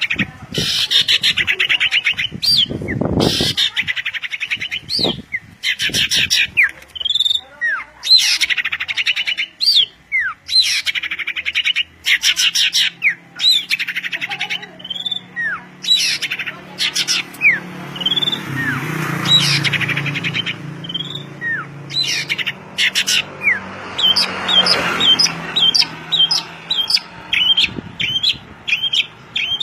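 Songbirds singing: loud runs of rapid chattering notes, interspersed with short sweeping whistles, and a quick series of repeated chips near the end.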